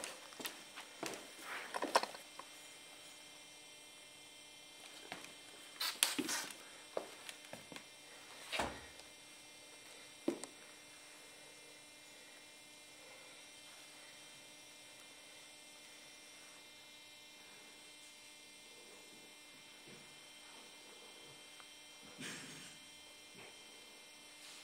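Faint steady electrical hum with scattered clicks and knocks, a cluster in the first two seconds and another about six seconds in.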